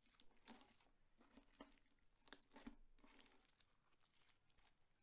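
Clear slime being worked by hand, giving faint, sticky crackles and small pops, with one sharper pop a little over two seconds in.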